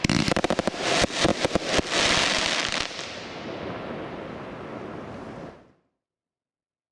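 100-shot fireworks battery (cake) firing a rapid salvo of bangs for about three seconds, followed by a steady hiss that fades and then cuts off abruptly.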